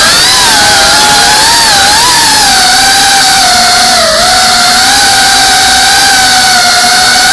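FPV quadcopter's electric motors and propellers whining loudly, picked up by the drone's onboard camera. The pitch wavers up and down with throttle changes and dips briefly about four seconds in.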